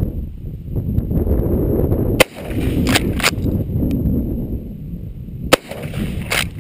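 Two shots from a Winchester Model 71 lever-action rifle in .348 Winchester, a little over three seconds apart. Each shot is followed by two quick clacks as the lever is worked to eject the case and chamber the next round. Wind noise rumbles on the microphone throughout.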